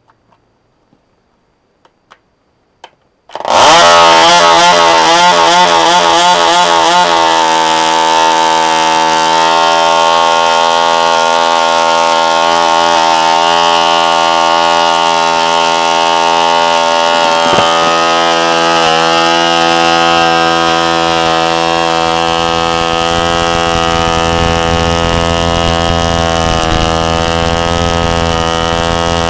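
Rebuilt Frog 500 two-stroke model glow engine starting after a few faint clicks about three seconds in, then running at high speed. Its pitch wavers for a few seconds before settling into a steady, loud run.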